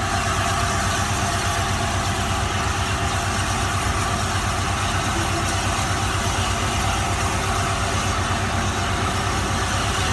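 LNER A4 steam locomotive 60007 Sir Nigel Gresley standing at the platform, steam hissing steadily over a low rumble.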